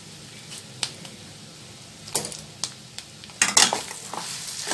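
Metal spoon clicking a few times against a steel kadai, then a louder burst of scraping and clinking about three and a half seconds in as it starts stirring spiced mashed potato.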